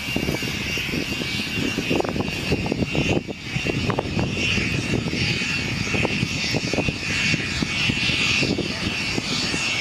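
Jet engine whine, a steady high tone, under gusty wind rumble and crackle on the microphone.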